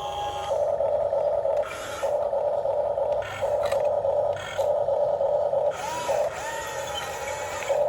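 Remote-control model excavator's electric gear motors whirring in repeated bursts of a second or so, starting and stopping as the controls are worked, with short rising and falling pitch changes near the end.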